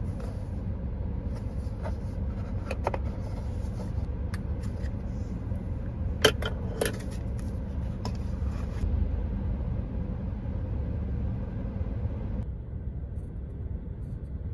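Steady low rumble of a car driving, heard from inside the cabin, with two sharp clicks about six seconds in.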